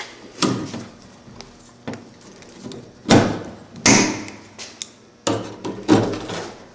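Irregular knocks, scrapes and rustling as wiring is pulled out through the fibreglass-insulated wall of a thermal test chamber, about six separate clunks, the loudest about three seconds in.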